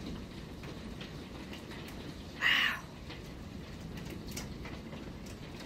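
Heavy rain pouring steadily during a hailstorm, with scattered sharp ticks. About two and a half seconds in, one short cry of about half a second stands out as the loudest sound.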